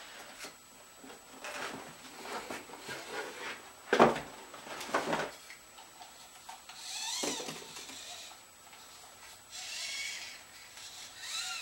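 Handling noise as a humanoid robot is lifted out of its moulded foam packaging insert: scattered knocks and rubs, loudest about four seconds in, then a few short squeaks in the second half.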